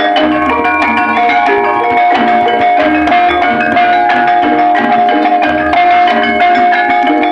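Loud gamelan-style ensemble music of tuned metal mallet percussion with drums, played through a sound system turned up so high that it overloads the recording.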